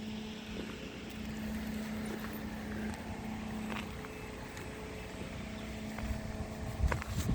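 An engine running steadily with a constant low hum, with a few short knocks near the end.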